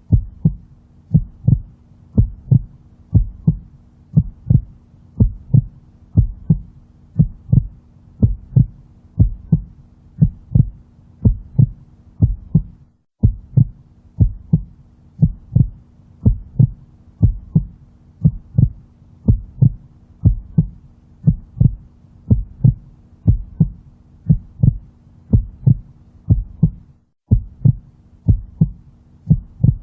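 Heartbeat sound played as a loop: a steady, even lub-dub double thump over a low steady hum. It cuts out briefly twice, about halfway and near the end, where the loop restarts.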